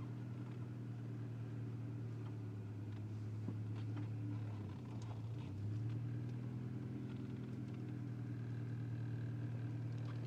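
Integra's four-cylinder engine idling steadily, its note sagging briefly about halfway through and then recovering, with a few faint knocks.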